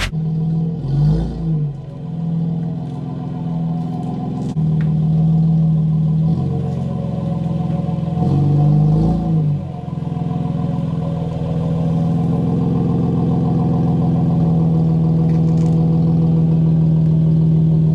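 Honda J35 V6 engine and exhaust under way, a steady drone that sways briefly in pitch about a second in and again near 9 s. It gets louder about 4.5 s in as the throttle opens.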